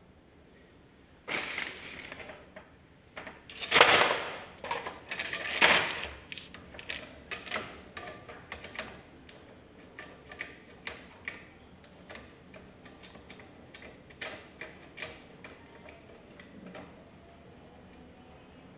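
Plastic burette clamp being handled and fitted onto the metal rod of a burette stand: scraping and rattling that is loudest a few seconds in, then a string of smaller plastic clicks and taps.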